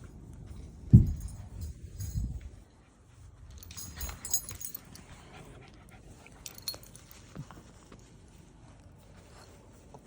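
Small dogs shifting about on a couch, with a low thump about a second in and collar tags jingling briefly a few times.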